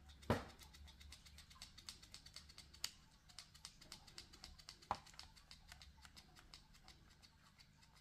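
Small plastic one-hand bar clamp being worked onto a pocket knife to press freshly glued scales: a sharp click about a third of a second in, then faint irregular ticks and handling clicks, with louder single clicks near three and five seconds.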